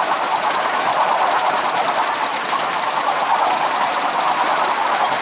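7¼-inch gauge miniature railway locomotive and train running along the track, heard from the riding car just behind: a steady, rapid mechanical clatter.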